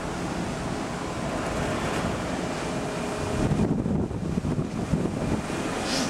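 Wind buffeting the microphone on a ferry's open deck over a steady rush of wind and sea. About three and a half seconds in, the buffeting grows stronger and gustier.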